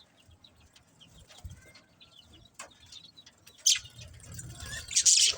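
Budgerigars chirping in short, scattered calls, with two louder harsh bursts: one a little past halfway and a longer one near the end.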